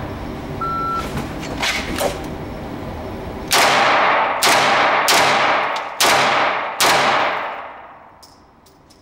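A shot timer's short beep, then about three seconds later five shots from a Walther PPQ 5-inch pistol, fired over about three seconds as a timed drill. Each shot rings on in the range's echo.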